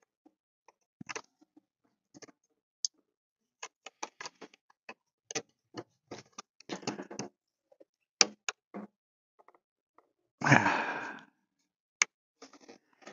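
Scattered small plastic clicks and taps from a lamp housing and its retaining clips being handled and pressed into place. About ten and a half seconds in there is one louder rustle of just under a second.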